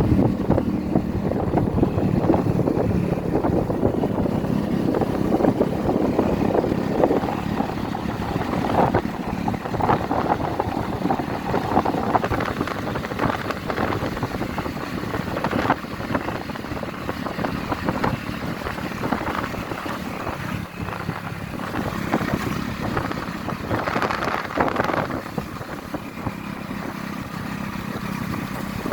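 A vehicle driving along a road: steady engine and road noise with a constant low hum and frequent knocks and rattles.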